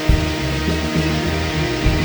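Psychedelic rock band playing live: guitars over bass with a steady drum beat.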